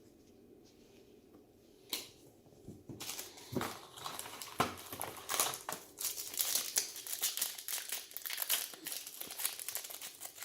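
Foil trading-card pack wrapper being crinkled and torn open, a dense run of crackling that starts about three seconds in after a single sharp click.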